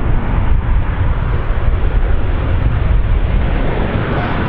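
Boeing 737 BBJ2 jet on final approach: its two CFM56-7 turbofans make a steady, loud low rumble.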